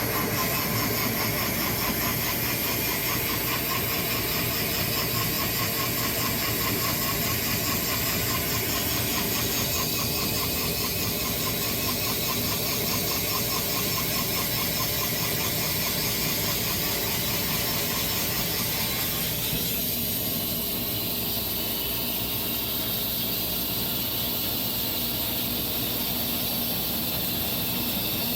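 Sawmill running under load while cutting a walnut log: a steady engine note under a dense high hiss from the blade in the wood. The middle of the sound thins out about ten seconds in and again near twenty seconds.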